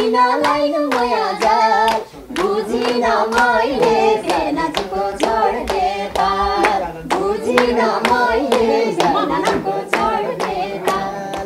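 Live Nepali dohori folk singing with hand claps keeping a steady beat. The voices break off briefly about two seconds in, then carry on over the clapping.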